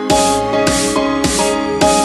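Background electronic music: a beat comes in at the start, with a low hit and a burst of bright noise about every 0.6 s, over steady synth notes.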